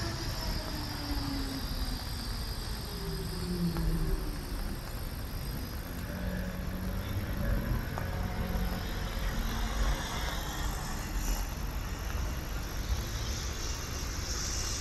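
Low-floor electric tram's drive whining and dropping in pitch as it slows, then a steady low hum, over a constant hiss of traffic noise.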